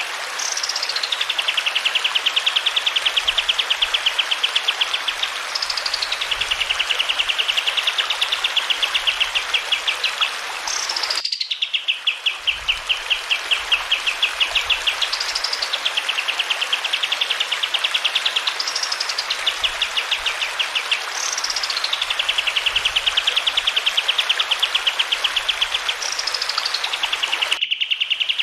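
Kapas tembak songbird singing the same phrase over and over, about every four to five seconds: a high note sliding down, then a long, fast trill. Flowing water hisses steadily underneath.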